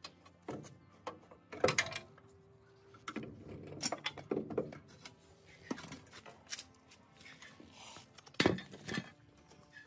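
Irregular metallic clinks and knocks of hand tools and engine parts being handled and set down, with two louder knocks, one early and one near the end.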